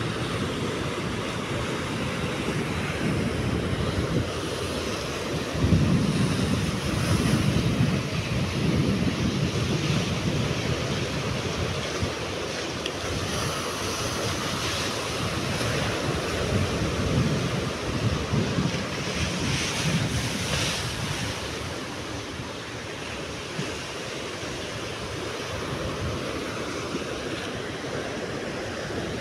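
Rough surf breaking and washing over a rock seawall, with wind buffeting the microphone. The low rumble surges loudest about six to ten seconds in.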